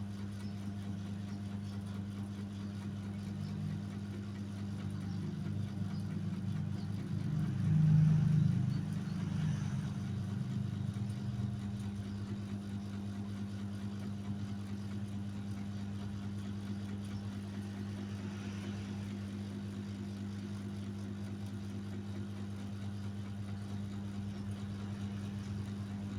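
Motorcycle engine idling steadily, with a brief swell in loudness about eight seconds in before it settles back to the same even idle.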